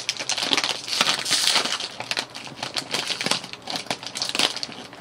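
A plastic snack packet crinkling in the hands as it is opened, with many irregular sharp crackles.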